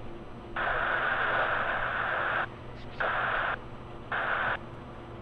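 Radio static: three bursts of hiss that switch on and off abruptly, a long one of about two seconds followed by two short ones, as a radio channel keys open without any voice.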